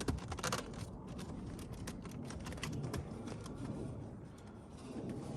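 Light clicks and rattles of plastic interior trim being handled and worked loose, thickest in the first second, then scattered.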